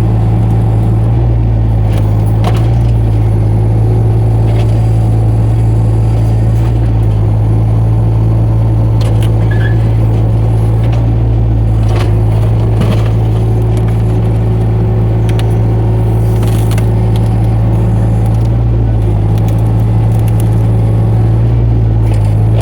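Mini excavator engine running steadily under a loud low drone, with scattered short sharp clicks and cracks.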